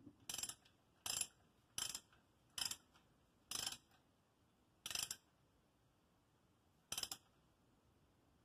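Ratchet wrench clicking in seven short strokes, spaced unevenly and further apart toward the end, as bolts are run in.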